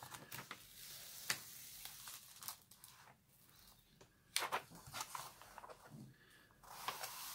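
Paper release sheet being peeled back off a sticky diamond-painting canvas, crinkling and rustling, with a few sharp crackles as it comes away from the adhesive.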